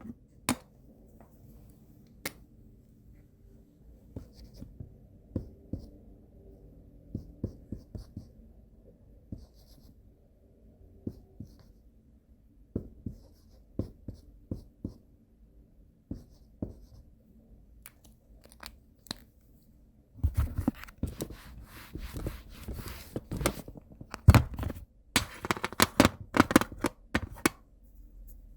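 Dry-erase marker on a whiteboard. For about the first twenty seconds there are only scattered light taps and short strokes. Then, about twenty seconds in, comes a dense run of writing strokes that lasts until near the end.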